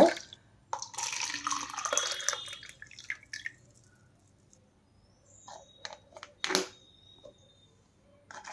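Hot agar-agar jelly liquid poured from a pan into a plastic cup, splashing and gurgling for about two and a half seconds. Later comes a few sharp clicks and knocks, the loudest about six and a half seconds in.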